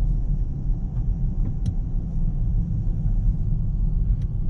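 Steady low rumble of a car driving on snowy roads, heard from inside the cabin, with a couple of faint ticks.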